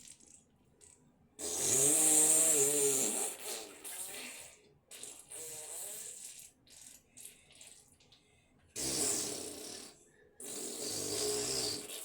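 A series of fart sounds: about four separate buzzy blasts with a wavering pitch, the loudest and longest lasting about two seconds, starting a second and a half in.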